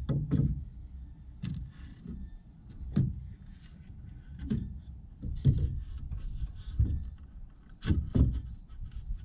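Irregular thumps and knocks, about one a second: footsteps on the rungs of a ladder being climbed, with a 2x4 trim board knocking.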